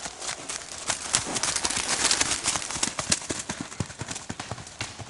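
A horse's hooves striking leaf-littered ground in a quick, irregular patter as it passes close by, growing louder to a peak about two seconds in and then fading as it moves away.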